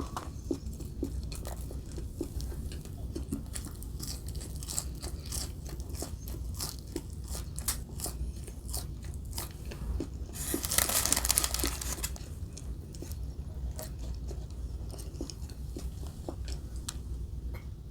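Close-miked ASMR eating of Burger King fast food: chewing with many small crunches and crackles, and a louder, noisier crunching stretch of about a second and a half around the middle.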